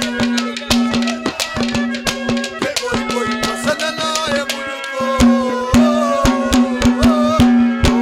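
Instrumental Haryanvi ragni accompaniment: fast hand-drum strokes over a steady held drone note and a wavering melody, with no singing.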